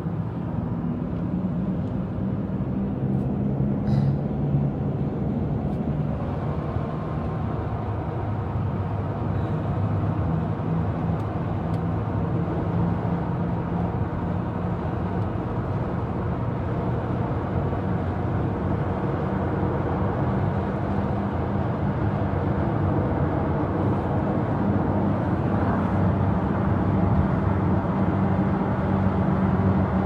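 Steady road and engine noise inside the cabin of a moving minivan at highway speed.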